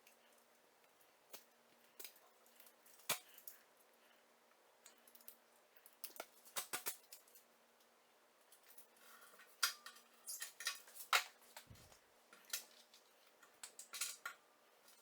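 Scattered small clicks, snips and crackles of hand work with scissors and tape, thickest in the second half, over a faint steady hum.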